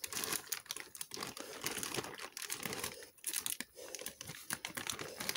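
Plastic packaging crinkling and rustling, with many quick irregular crackles, as a plastic model kit's sprues are unpacked by hand.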